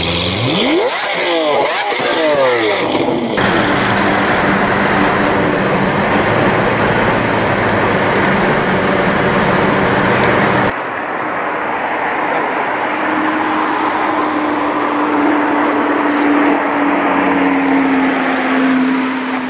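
Lamborghini engines: several quick revs rising in pitch in the first three seconds, then abruptly a Lamborghini Gallardo LP560-4's V10 running hard, heard from a following car. About ten seconds in it drops to a quieter steady engine note that falls slowly in pitch as the Gallardo drives by.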